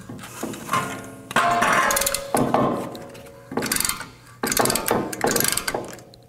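Hand ratchet clicking in about six short strokes as the bolts of a pickup's front brake caliper are tightened, with a brief metallic ring about a second in.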